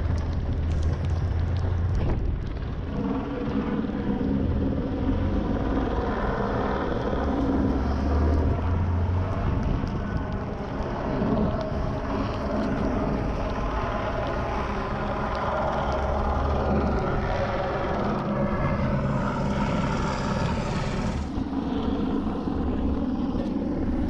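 Four-wheel-drive vehicle's engine running as it drives along a rough dirt track, with a steady noise of the moving vehicle and the engine note shifting a few times.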